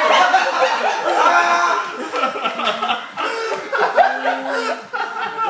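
A group of people laughing and chuckling, several voices overlapping in loud bursts of laughter.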